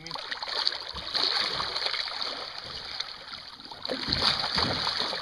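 A hooked fish splashing and thrashing at the water's surface right beside the boat's hull, louder about a second in and again around four seconds in.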